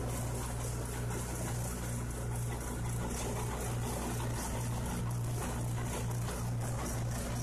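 Grout mixer running steadily, churning neat cement slurry: a continuous low machine hum over a wet, noisy churning.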